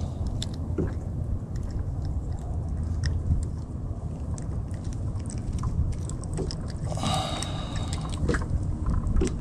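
Close-up handling of a freshly caught grunt (fish) while the hook is worked out of its mouth: scattered small clicks and crunches, with one short rasping burst about seven seconds in, over a steady low rumble.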